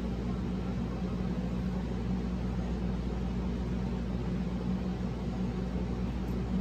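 Steady low hum with an even hiss underneath, the running background noise of a fan or similar machine in the room.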